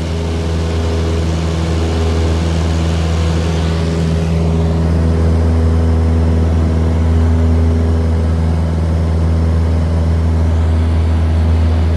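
Single-engine light aircraft's piston engine and propeller running steadily, a deep even drone with a hiss of air noise over it, growing slightly louder over the first few seconds.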